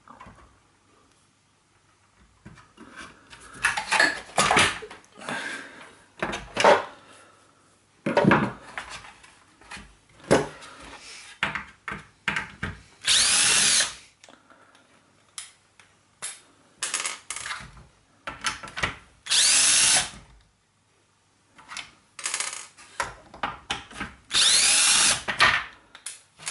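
Cordless drill-driver spinning in three short runs, undoing the screws that hold the shower's solenoid valve and pump parts. Between the runs, and before them, come knocks and rattles of plastic parts and tools being handled.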